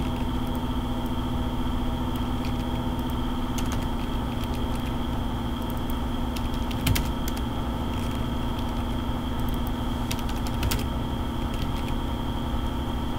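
Computer keyboard and mouse clicks, scattered and irregular, over a steady electrical hum with several constant tones.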